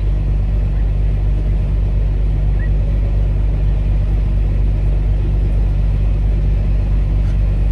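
Semi-truck's diesel engine running, a steady low drone that does not change.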